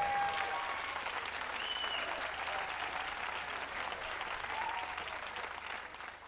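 Crowd of spectators applauding, the clapping dying away near the end.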